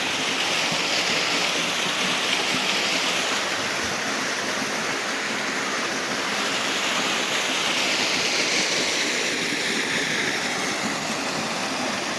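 Steady, even rush of river water and a small cliff waterfall, its flow low for want of rain.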